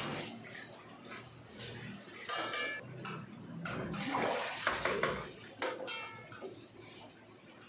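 Dishes and a plastic bowl clattering in a stainless-steel kitchen sink, with irregular knocks and a couple of ringing clinks, along with some splashing water as pak choy soaking in salted water is handled and lifted out.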